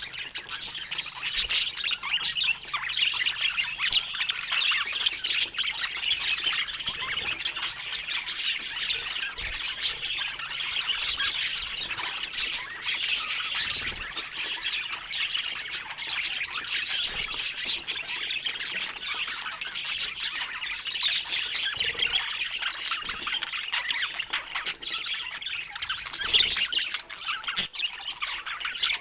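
Budgerigars chattering and squawking without a break: a dense, busy warble of chirps, squeaks and clicks.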